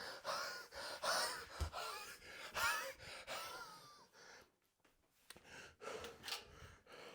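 A man gasping and breathing hard in mock panic, with short voiced whimpers, for about four seconds, then only a few faint breaths.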